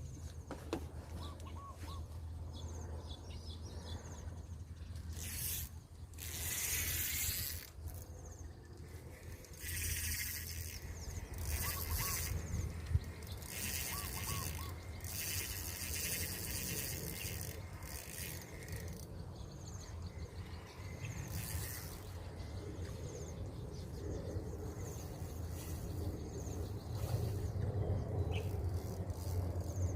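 Outdoor ambience with a few short bird chirps over a steady low hum, and several stretches of hiss lasting a few seconds each.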